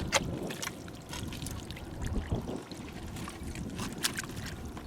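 Water sloshing and splashing as it is stirred by hand, with a few sharp clicks, the loudest just after the start.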